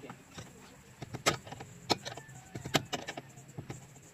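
Metal hand tools clinking and tapping against a car's disc brake caliper as it is taken apart: irregular sharp clicks, three of them louder, spaced about a second apart.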